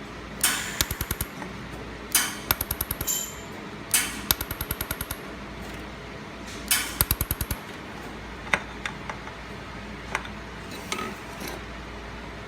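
Handheld laser welder firing on stainless steel: four short bursts, each a sharp crack followed by a rapid string of pops at about a dozen a second, then a few single clicks, over a steady low hum.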